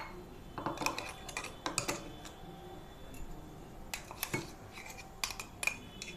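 Metal spoon scraping and clinking inside a stainless steel mixer-grinder jar, scooping out coarse ground spice paste, in irregular short scrapes and clicks.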